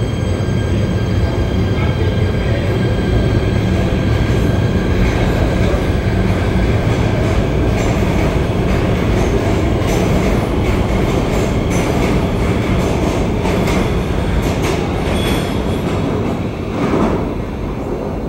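PATH Kawasaki PA-5 subway train pulling out of an underground station, with a steady motor whine. Its wheels click over the rail joints, and the sound fades near the end as it leaves.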